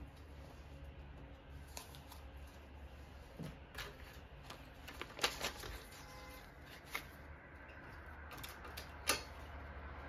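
Soft rustling and crinkling of paper banknotes being counted and handled, with a few sharper paper flicks and snaps, the loudest around the middle and about a second before the end.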